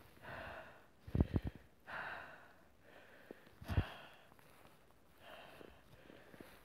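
A person breathing hard, about one breath every second and a half, while wading through deep snow. A few short low thumps hit the microphone about a second in and again near four seconds.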